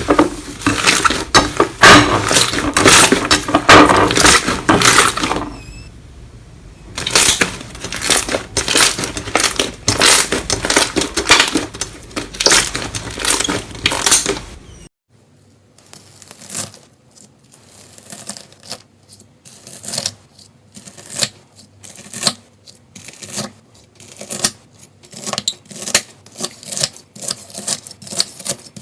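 Slime being squeezed, poked and pressed by hand, making rapid clicking and popping sounds. About halfway through the sound changes abruptly to quieter, sparser clicks, as from a different slime clip.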